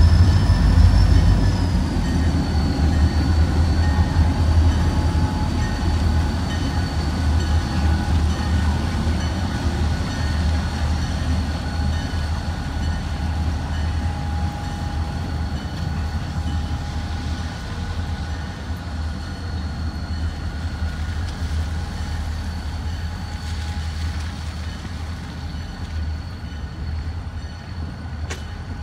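Freight train rolling by: a steady low rumble with several thin, steady high-pitched whines over it, slowly fading.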